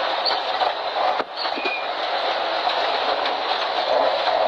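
Ford Escort Mk2 rally car driven hard on a gravel stage, heard from inside the cabin: loud engine and a steady rattle of gravel and road noise through the shell, with a sharp knock and a brief dip in level about a second in.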